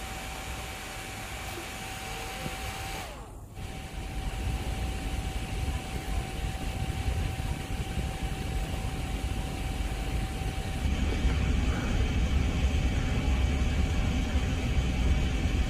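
Strong wind buffeting the microphone as a low, steady rumble that grows louder about eleven seconds in, over a faint steady whine.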